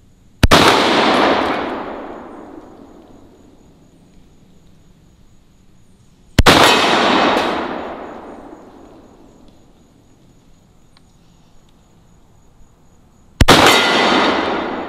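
Three shots from a Beretta 1301 Tactical 12-gauge semi-automatic shotgun firing 1-ounce Foster slugs, spaced about six and seven seconds apart. Each shot is followed by a long echo rolling off the hillside that fades over about two seconds.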